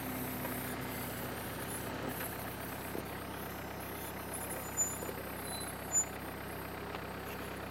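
Off-road SUV fitted with tyre chains driving slowly away through deep snow, its engine running steadily under load. Two short sharp clicks stand out about five and six seconds in.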